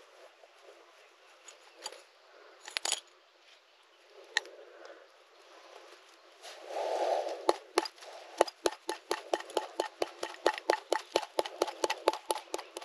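Metal coins and small trinkets clinking against each other and the inside of a broken clay pot as it is handled and shaken. A few separate clinks at first, then from about halfway a quick run of clicks, about five a second.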